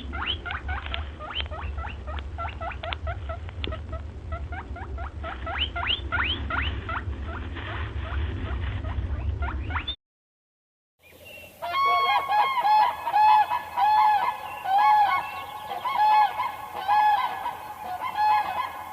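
Animal calls in two separate clips. First come about ten seconds of rapid, high chirps that each sweep upward, over a low hum. After a short break comes a run of repeated calls of even pitch, about two a second.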